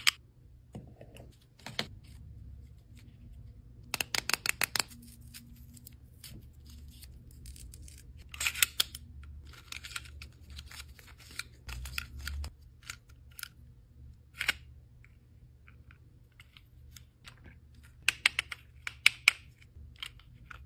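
Long acrylic fingernails clicking and tapping on plastic PEZ candy dispensers and their candy packaging while a dispenser is loaded, in short bursts of rapid clicks with single clicks and pauses between them.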